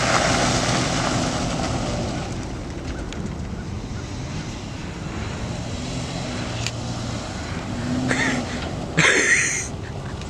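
Jeep Wrangler's engine revving hard as it drives through mud, heard at a distance, then easing after about two seconds to a steadier, quieter running note. A short loud burst comes near the end.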